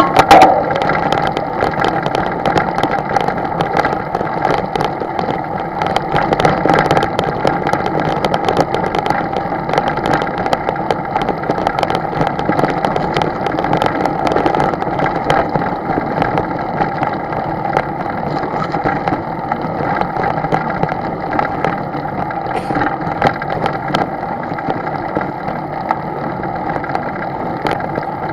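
An engine running steadily at an even drone, with frequent small crackles and knocks over it and a brief louder hit right at the start.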